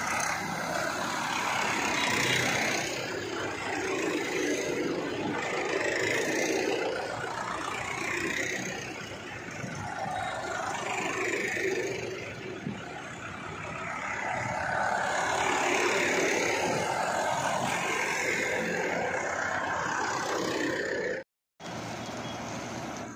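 A convoy of Trakstar tractors driving past one after another, the engine noise swelling and fading as they go by. The sound cuts out briefly near the end.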